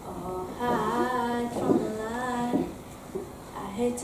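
A young girl singing, holding long steady notes, with a short break about three seconds in.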